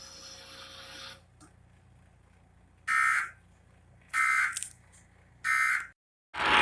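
Emergency Alert System end-of-message data bursts: three short, identical buzzy bursts of SAME digital tones, about a second and a quarter apart, marking the end of the alert.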